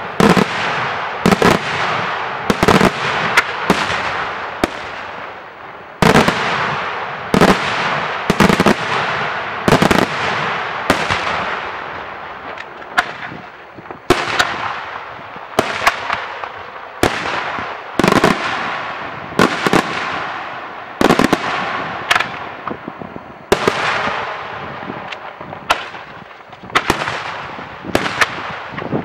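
Daytime aerial fireworks shells from a Senatore Fireworks display bursting in a steady string of sharp bangs, about one every second, each trailing off in a long echo.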